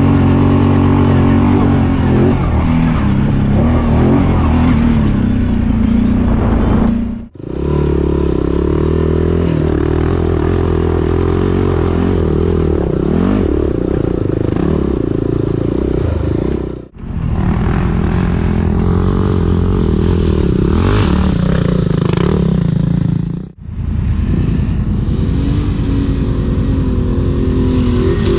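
ATV engines running under load as the quads ride over loose rock, the engine note shifting pitch with the throttle. The sound drops out briefly three times, and the engine note changes after each dropout.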